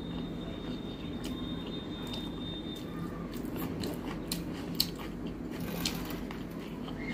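Close-up chewing of a mouthful of rice and curry, with wet mouth clicks and the soft squish of fingers mixing rice and curry on a steel plate. One sharper click stands out a little under five seconds in.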